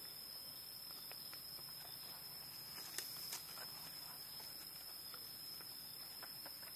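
Bamboo chopsticks lightly tapping and scraping in a clay pot of fish soup, with two sharper clicks about three seconds in, over a steady high-pitched tone.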